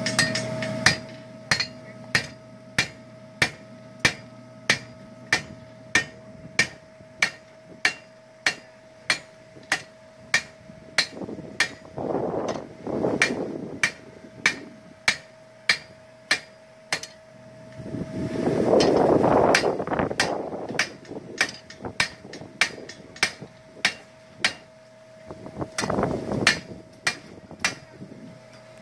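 Blacksmith's hammer striking iron on an anvil at a steady rhythm of about two blows a second, each blow ringing sharply. The hammering pauses for a couple of seconds about two-thirds of the way through while a louder rush of noise swells, then resumes.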